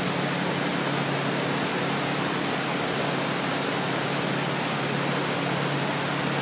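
Steady fan or air-conditioning noise: an even rush with a low hum underneath, unchanging throughout.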